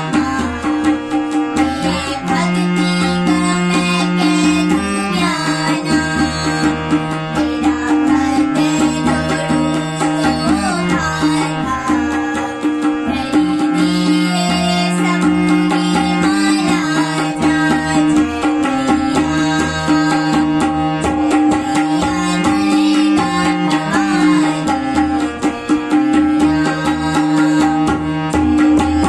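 A girl singing a Hindi devotional bhajan, accompanied by harmonium and tabla. The harmonium keeps a steady held note under the melody while the tabla strokes carry the rhythm.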